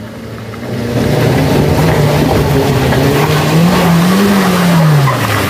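Daihatsu Gran Max van's engine pulling hard under load up a steep dirt incline. Its note gets louder about a second in, rises slowly to a peak about four seconds in, then falls off toward the end.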